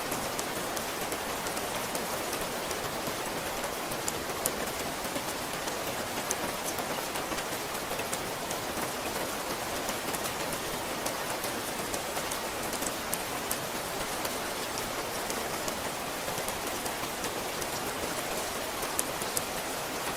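Steady rain, with many individual drops ticking sharply on a surface through an even hiss.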